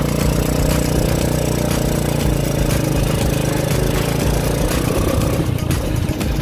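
Motorcycle engine of a payong-payong motorcycle taxi running steadily, heard from on board, with a steady haze of road noise.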